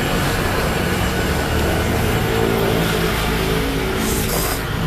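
Street traffic noise dominated by a motor vehicle's engine running steadily close by. A short hissing slurp of noodles comes about four seconds in.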